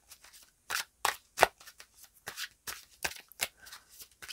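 A deck of oracle cards being shuffled by hand: a run of short, irregular card snaps and slaps.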